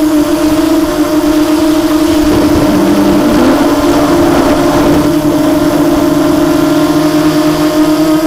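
Quadcopter's brushless motors and HQ 6x4.5 carbon-reinforced propellers whining steadily, heard from the onboard camera. A rush of wind noise comes in about two seconds in and fades after about three seconds.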